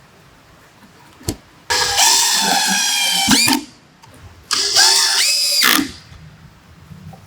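An electric power tool's motor is run in two short bursts of a couple of seconds each, after a single click. The whine shifts pitch within each burst and stops quickly.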